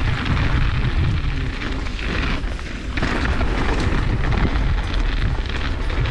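Wind buffeting an action camera's microphone on a mountain bike ride downhill, a steady low rumble, with knobby tyres rolling and crunching over a loose gravel trail.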